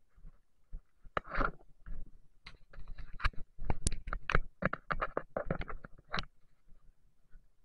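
Footsteps crunching and scraping on a stony, gravelly dirt trail, an irregular run of steps from about a second in until just after six seconds.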